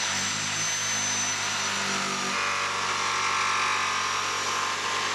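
DeWalt corded jigsaw rough-cutting the edge of a plywood countertop, the motor and blade running steadily. About two seconds in, the low hum drops away and a higher whine comes up.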